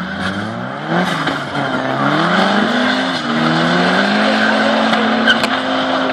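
Volvo 850 T5's turbocharged five-cylinder and a Vauxhall Nova turbo launching side by side off a drag-strip start line, revving hard and changing up through the gears, the pitch climbing and dropping back at each shift before holding steady. The Volvo's front tyres spin and squeal on the launch.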